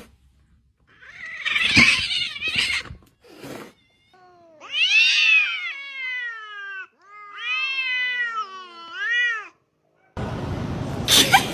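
A cat yowling: two long, drawn-out meows whose pitch rises and falls, the second one wavering, after a short noisy burst.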